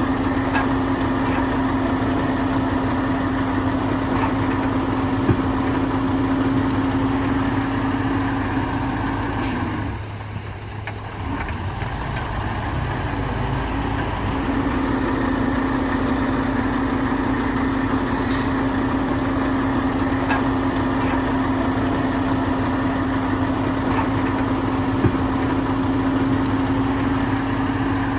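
Bulldozer's heavy diesel engine running steadily with a strong, even hum. About ten seconds in, the hum drops away for a few seconds before picking up again.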